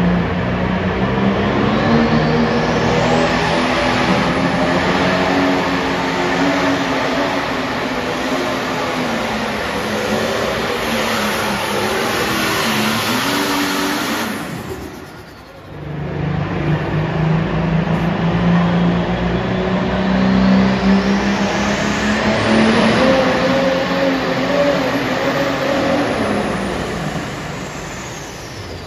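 Light pro stock pulling tractors' turbocharged diesel engines at full throttle, dragging the weight-transfer sled. There are two runs: the first stops about halfway, and the second, with a high whine rising in pitch at its start, fades out near the end.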